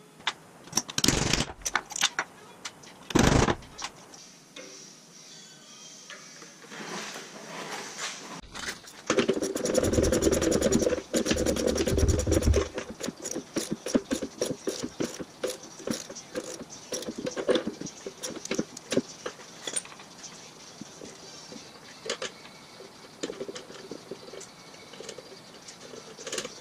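Sharp knocks of metal parts and tools on a plywood workbench, then a hand socket ratchet clicking in quick runs as the nuts on a friction shock arm at the front axle are tightened. A louder, denser stretch of a few seconds comes about a third of the way in.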